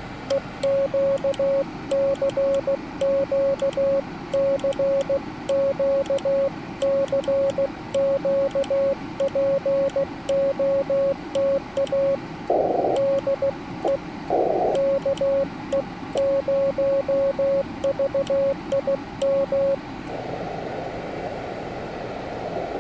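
Morse code on a Yaesu FT-891 transceiver: a single steady tone keyed on and off in even dits and dahs, over a background of receiver hiss. The keying stops about three seconds before the end, leaving only the hiss.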